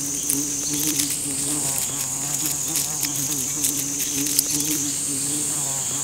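Flies buzzing around a fresh dung pile, a steady, slightly wavering hum, over a constant high-pitched insect drone.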